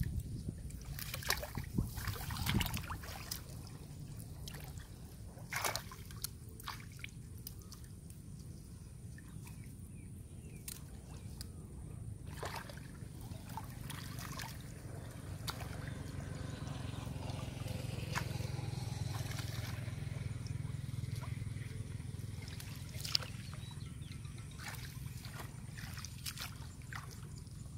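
Sloshing, trickling and dripping of shallow muddy water as plants are pulled up by the roots and a person wades through it, with scattered small splashes. A low rumble swells for a few seconds past the middle.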